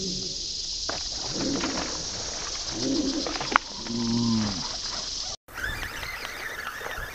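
Slowed-down replay audio: a man's exclamation stretched into low, drawn-out, cooing tones, with one sharp click about three and a half seconds in. Then a sudden cut to real-time outdoor sound with a steady hiss.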